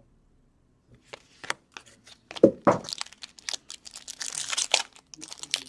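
A foil wrapper of a hockey card pack being torn open and crinkled, with the cards inside handled. It starts about a second in and becomes busier and louder toward the middle.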